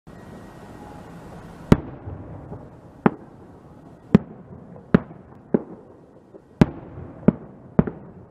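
Aerial firework shells bursting overhead: about nine sharp bangs at uneven intervals, two in quick succession near the end, over a steady background hiss.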